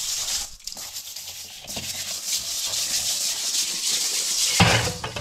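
Hands scrubbing salted spiny eel pieces in an aluminium bowl: a steady gritty rubbing as the salt scours off the fish's slime. About four and a half seconds in, a louder splash of tap water hits the bowl in the sink.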